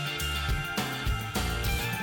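Background music with a steady beat, guitar and bass.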